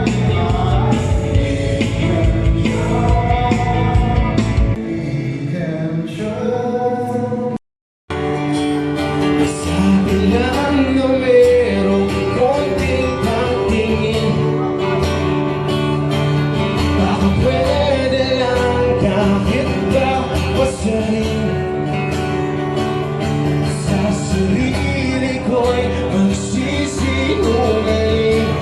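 Music with a singing voice. It cuts out completely for a moment about seven and a half seconds in, and a different song starts.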